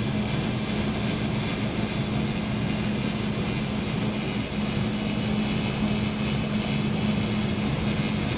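Hushed ambience of a vast outdoor crowd keeping a minute's-style silence: a steady hiss with a constant low hum underneath, no cheering, music or voices standing out.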